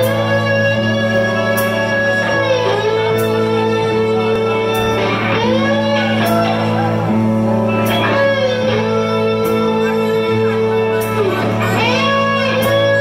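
Live blues-rock band playing: a harmonica wails long notes that bend down in pitch and back up, over electric guitars, bass and drums with periodic cymbal hits.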